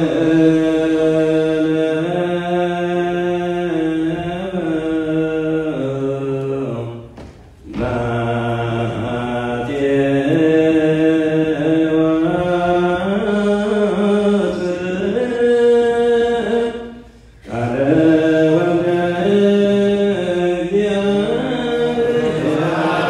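Ethiopian Orthodox liturgical chant by male voices, long drawn-out notes sliding slowly between pitches, with two brief pauses.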